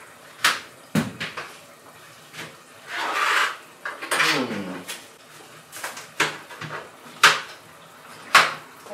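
Kitchen knife cutting through ripe plantain and knocking onto a cutting board: about seven sharp, irregular knocks, a second or so apart.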